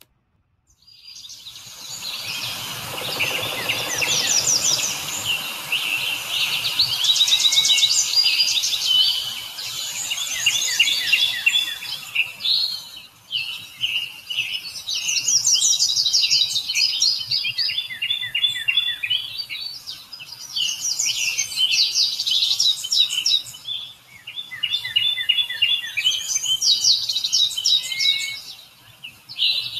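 A thrush singing: a continuous run of varied, rapid trilled and whistled phrases, broken by brief pauses every few seconds.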